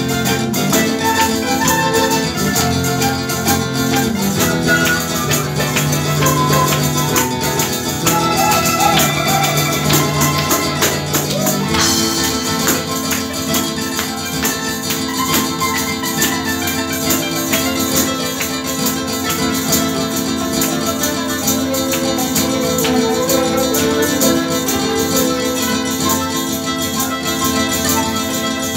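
Live Neapolitan tarantella played by a small folk ensemble: a tambourine keeps a fast, even beat over plucked guitar and mandolin and flute. About twelve seconds in the music grows fuller and brighter.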